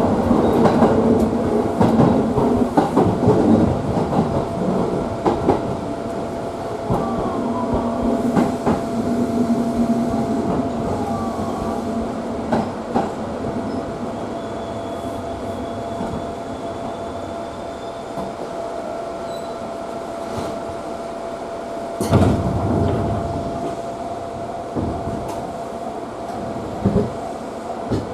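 JR Tsurumi Line electric commuter train running between stations, heard from inside the car. Steady rumble of the wheels on the rails with a constant thin whine, and irregular clicks over rail joints. There is one louder knock about three-quarters of the way through.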